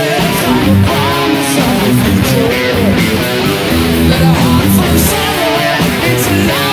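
Electric guitar playing a lead line, picked notes with string bends and vibrato, over a full rock backing of bass and drums.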